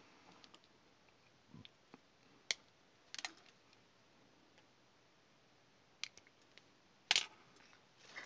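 A few short sharp clicks and scrapes from a snap-off utility knife and a thin wire being handled while the wire's insulation is stripped. The loudest cluster comes about seven seconds in.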